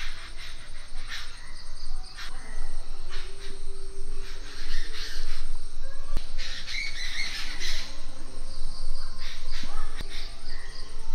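Outdoor birdsong, birds chirping and calling repeatedly, over a steady high-pitched drone of crickets. A couple of sharp clicks sound, one about six seconds in.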